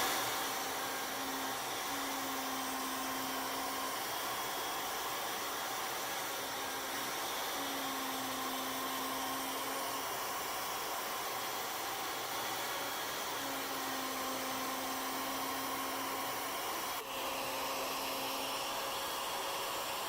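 Forest Scientific CNC router and its vacuum hold-down table running: a steady rushing noise, with a low hum that comes and goes several times.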